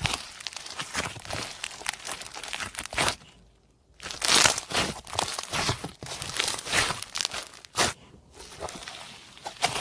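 Crunchy slime being squeezed and kneaded by hand, giving a dense run of sharp crackles and pops. The crackling stops briefly a little after three seconds in, then starts again louder.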